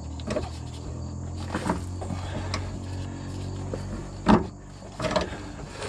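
Rubber factory jounce bumper on a Ram Promaster's rear suspension being turned off its threaded bolt with an oil filter wrench: a few short clicks and knocks, the loudest about four seconds in, over a steady low hum.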